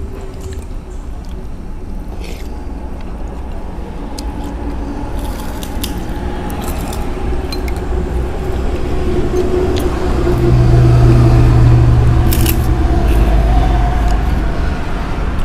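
A motor vehicle's engine running, a low rumble that grows louder and is loudest about ten to thirteen seconds in, with light clinks of spoons against bowls.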